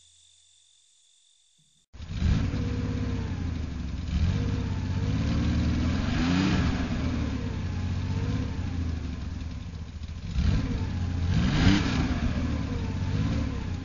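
A car engine sound effect starts suddenly about two seconds in and runs with its pitch rising and falling as it revs, with two louder revs about six and eleven seconds in.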